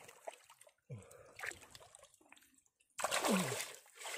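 Muddy water and mud squelching and sloshing as a hand digs in a shallow, drying pond bed, with a burst of splashing noise about three seconds in. A short low sound falling in pitch comes about a second in and another just after three seconds.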